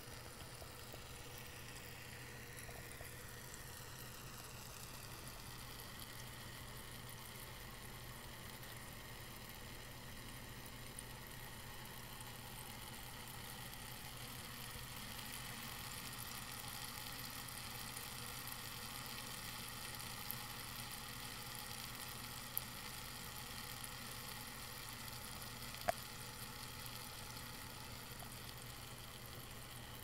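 Homedics tabletop water fountain running: its small pump hums steadily while water trickles over the diamond frame into the basin. A few sharp clicks come in the second half.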